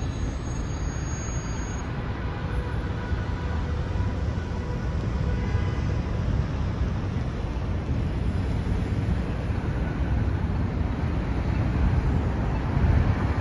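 City street traffic: a steady low rumble of passing vehicles with faint steady tones over it, growing a little louder near the end.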